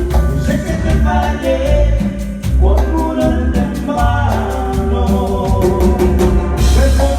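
Latin dance music with singing, a heavy bass line and a steady drum beat.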